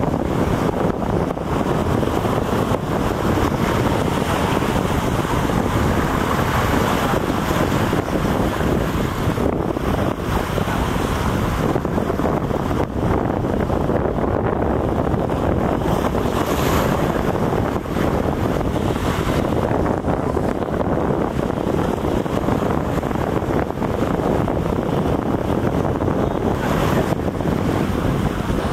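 Steady wind buffeting the microphone, over the rush of waves and water.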